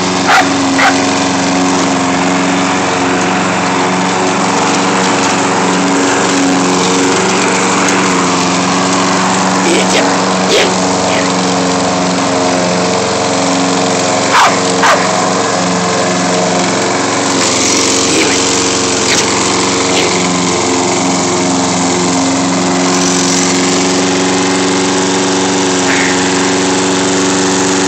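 Walk-behind petrol lawnmower engine running steadily, with a dog barking at it. The barks come a few at a time, often in pairs: near the start, about ten seconds in, and around fourteen seconds.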